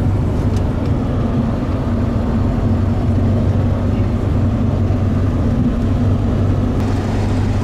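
Pickup truck with a camper driving along the highway, heard from inside the cab: a steady low engine drone with road and tyre noise.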